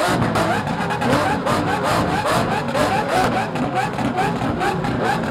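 Lamborghini Aventador SVJ's V12 revved hard in rapid repeated throttle blips, about three a second, each a quick rise and fall in pitch.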